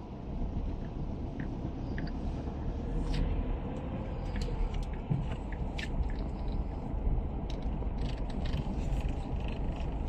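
Road noise heard inside a car's cabin while it drives slowly on a rough, patchy road: a steady low rumble of tyres and engine, with scattered small clicks and ticks.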